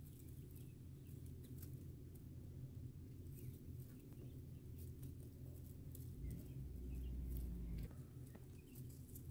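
Young quail chicks peeping faintly and pattering about on wood-shaving bedding, with scattered small clicks and scratches, over a steady low rumble that swells louder for about two seconds near the end.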